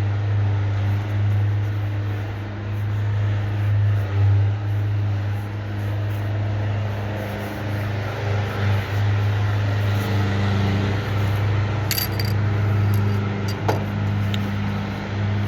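A steady low hum, as of a motor or transformer running, with a few light metallic clicks and a short jingle about twelve and fourteen seconds in.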